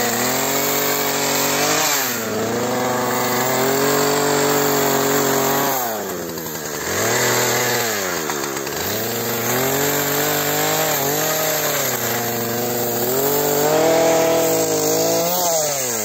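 Chainsaw cutting through fallen trees. The engine runs at high revs, and its pitch sags and recovers as the chain works through the wood: briefly about two seconds in, for longer between six and nine seconds, and again near the end.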